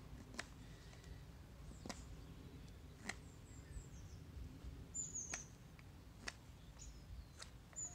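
Straight knife slicing sycamore in a chest-lever grip, shaping the back of a spoon: short, crisp cuts about every second or so, faint. Small birds chirp briefly and high-pitched, once about five seconds in and again near the end.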